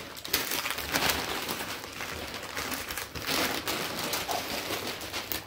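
Packaging crinkling and rustling as a cardboard box tightly wrapped in clear plastic is handled and moved about, a continuous crackle of many small clicks.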